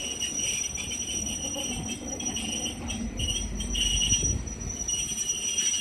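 Train moving slowly on the rails, its wheels squealing on and off over a low rumble that swells about four seconds in.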